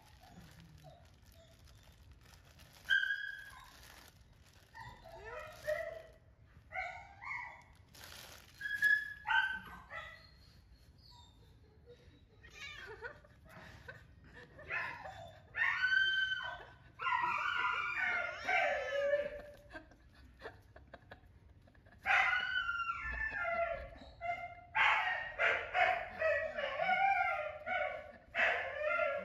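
Baby macaque squealing in short, high, wavering calls, scattered at first and running almost without a break in the second half.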